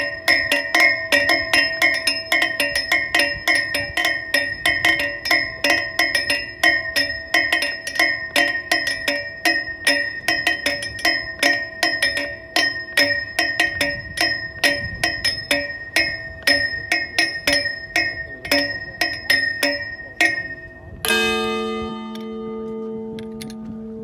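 A bronze tide bell struck rapidly from inside with a metal rod: a fast run of ringing strikes, several a second. About three-quarters through, the run stops and a single strike leaves the bell ringing on with a long, low hum.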